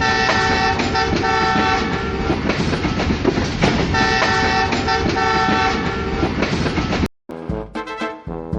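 A train running past with a steady rumble while its multi-note horn sounds in two long stretches, one at the start and one about four seconds in. The sound cuts off suddenly about seven seconds in and music follows.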